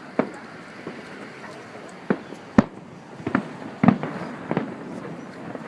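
Display fireworks shells bursting overhead: about six sharp booms at uneven intervals, each with a short rumbling tail.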